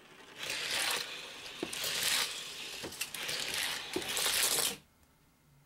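Several Hot Wheels die-cast cars rolling fast down orange plastic track: a steady rushing rattle with a few sharp clicks, cutting off sharply near the end as the cars run out.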